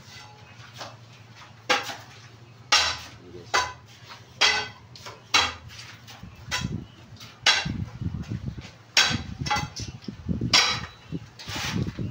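Sharp clinking knocks of a metal tool striking concrete masonry, at first about one a second, then coming faster and busier in the second half with a low rumble underneath.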